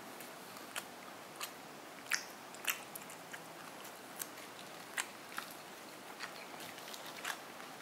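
Close-up chewing of crumbed fried chicken chop, with sharp crispy crunches coming irregularly about once every half second to a second over a faint hiss.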